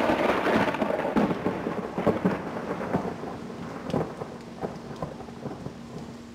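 Thunder rumbling with scattered crackles, fading away steadily; a faint steady low hum comes in about halfway through.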